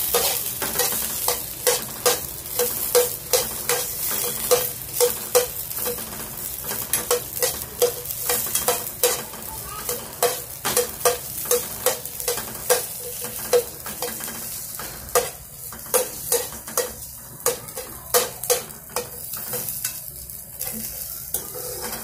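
Steel spoon stirring chopped okra frying in oil in a frying pan: a clink and scrape against the pan about twice a second over steady sizzling.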